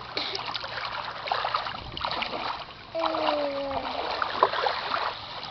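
Small splashes and the wash of shallow sea water as a baby sits and paddles his hands in gentle surf. About three seconds in there is a brief pitched sound, about a second long and sliding slightly down in pitch.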